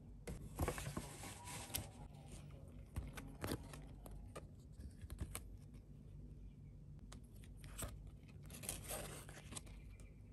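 Shopping-haul packaging being handled and unwrapped: two longer tearing rustles, one near the start and one near the end, with small clicks and taps scattered between them.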